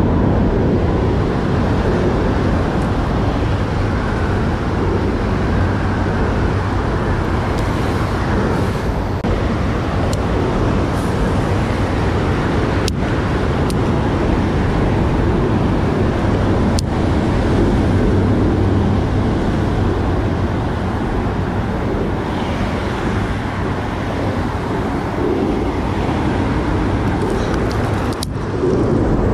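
Steady road traffic on the concrete highway bridge overhead, a continuous low rumble of tyres and engines. Two sharp clicks come about halfway through.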